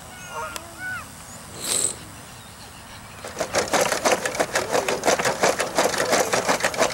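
Canada geese giving a few short honks, then, from about three seconds in, a loud, rapid, rhythmic beating.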